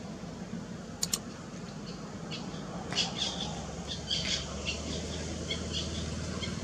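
A scatter of short, high-pitched animal chirps and squawks, bunched a few seconds in, over a low steady hum, with a quick double click about a second in.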